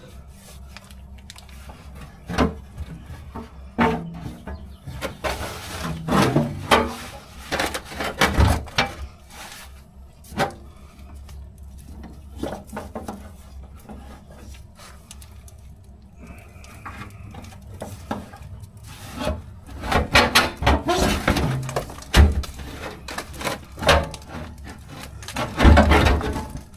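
Irregular knocks, clunks and scraping as a car's fuel tank is lifted and shuffled into place under the body, with busier stretches of bumping and rubbing partway through and again near the end.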